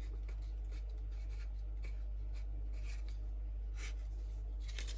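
Stabilo Sensor fine-point pen writing on a paper sticky note: a run of short, faint, irregular scratching strokes as letters are written, over a steady low hum.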